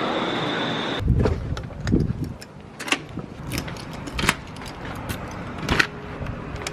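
Steady vehicle ride noise with a thin high tone, cut off suddenly about a second in. Then a run of sharp metallic clicks and jingles of keys being handled.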